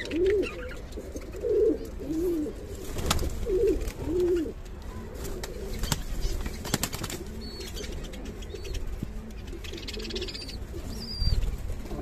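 Pigeons cooing: a run of low, rising-and-falling coos through the first four seconds or so. Then a few sharp wing flaps and clicks, and scattered short high chirps from budgerigars.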